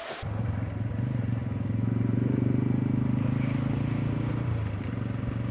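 An engine running steadily with a rapid even pulse, a little louder in the middle and easing off slightly near the end.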